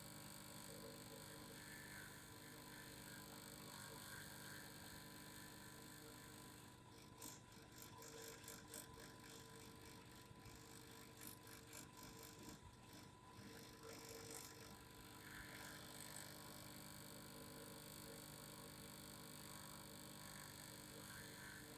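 Faint, steady vibrating hum, with a stretch of quick, faint ticking or rattling in the middle.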